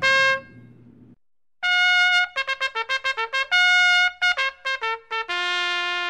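Trumpet music: a tune of quick short notes between longer held ones, with a short pause about a second in and a long held note near the end.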